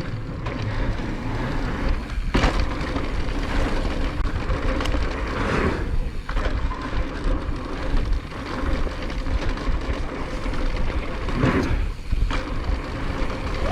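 Mountain bike riding noise on a dirt singletrack descent: steady rumble of tyres and wind buffeting the rider's microphone, with a few sharp knocks as the bike rattles over roots and bumps.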